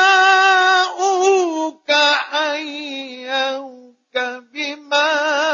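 Male Quran reciter chanting in the ornate mujawwad style: one long high held note that slides down about a second in into wavering, ornamented runs at a lower pitch, with a short break for breath about four seconds in.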